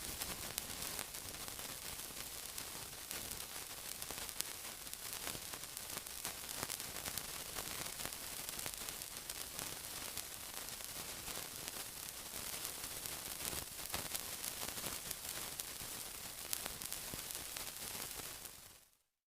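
Continuous sizzling: a steady, bright hiss peppered with small pops and crackles, fading out just before the end.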